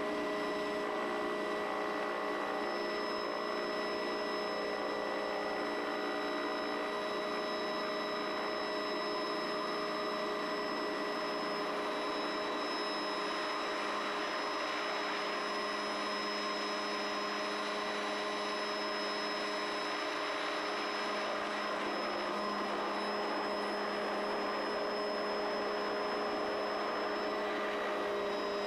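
Helicopter in flight, heard from inside the cabin: a steady turbine whine of several held tones over an even rushing noise.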